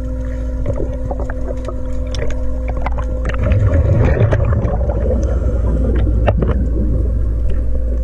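Underwater sound picked up by a diver's camera: a steady low mechanical hum carried through the water, with scattered clicks. About halfway through comes a louder rush of scuba exhaust bubbles from a diver's regulator.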